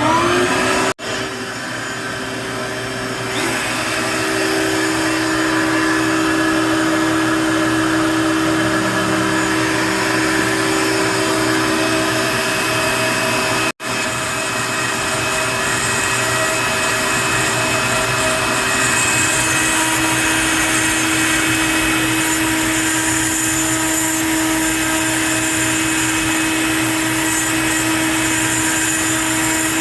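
Router spindle on a Onefinity CNC machine running loud and steady with a high whine, its 1/8 inch bit cutting a roughing pass through wood. The sound breaks off for a split second twice, about a second in and near the middle.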